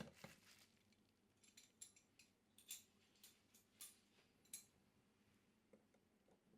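Faint, scattered light clicks and taps, about eight of them over three seconds, as of small hard objects being handled.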